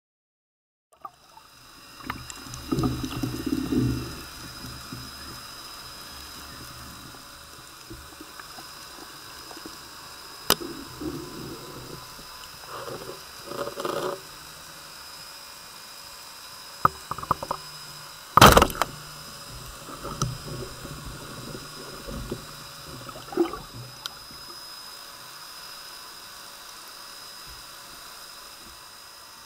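Underwater sound picked up through a camera housing: a steady hiss with faint tones, scattered knocks and rustles, and once, about two-thirds of the way through, a single sharp loud crack, the speargun firing.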